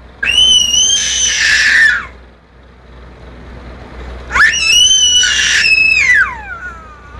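A baby's high-pitched squeals: two long shrieks, the second ending in a falling glide.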